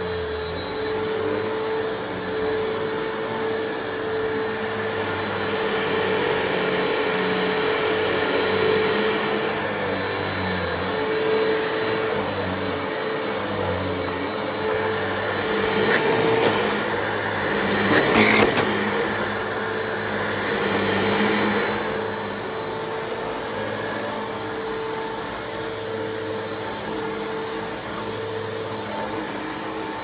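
Hoover WindTunnel Pet Rewind Plus cyclonic upright vacuum running over a rug, its steady motor hum swelling and easing as it is pushed back and forth. Two sharp clatters come around the middle, the second the loudest moment.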